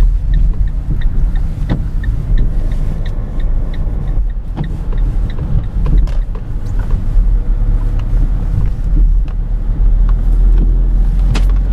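A car driving, heard from inside the cabin: steady low rumble of engine and road noise. In the first few seconds there is a regular light ticking, about two ticks a second.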